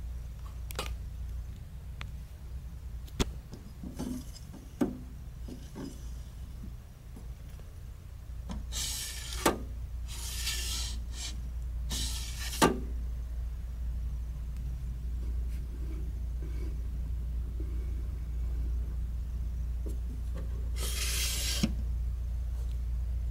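Sliding glass doors of a Mettler AE200 analytical balance's draft shield slid open and shut several times, each slide a short rasping swish ending in a sharp click, with a few lone clicks in between, over a steady low hum.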